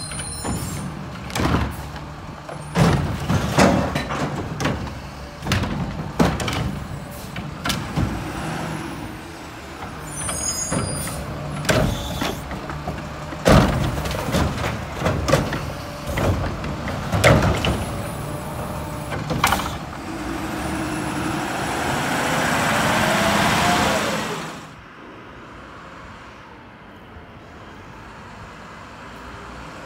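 Front-load garbage truck with a Curotto-Can automated arm picking up a cart: repeated loud clanks and bangs as the arm grabs, lifts and shakes the cart over the hopper. Later a long rising rush of the engine revving under hydraulic load, which cuts off sharply, then the truck running more quietly.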